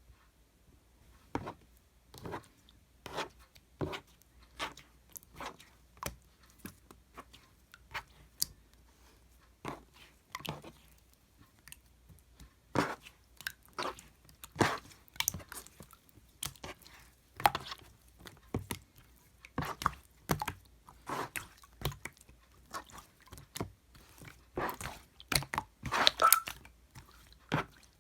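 Hands squishing and pressing a watery, jelly-like slime, giving irregular short wet pops and clicks, about one or two a second, busier and louder in the second half.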